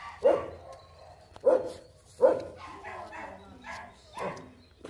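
A dog barking in short single barks, about five of them spaced roughly a second apart.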